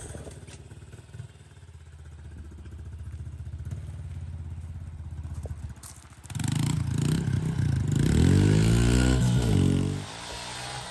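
Honda 110cc dirt bike's small single-cylinder four-stroke engine idling steadily. About six seconds in it is revved up and down several times, louder, then settles back to idle near the end.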